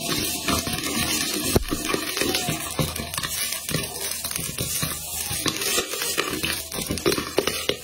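Popcorn popping in a covered wok: irregular sharp pops, several a second. Beneath them the glass lid scrapes and rattles on the pan as it is moved to shake the corn.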